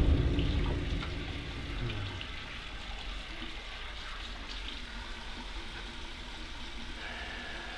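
Tap water running faintly into a bathroom sink while hands are washed. A deep low rumble dies away over the first couple of seconds.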